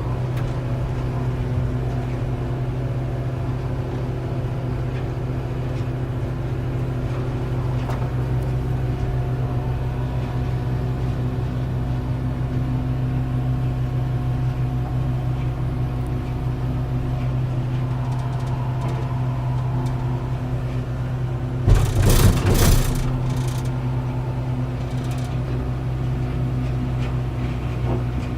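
Komatsu BR-120T1 mobile crusher running under load with a deep, steady rumble from its engine and rotating crushing mechanism. About three quarters of the way through there is a brief loud crash, like a load of wood striking the machine.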